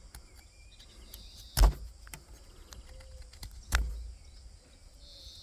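Two sharp chops about two seconds apart: a Kizer Bugai knife blade striking into a wooden stake.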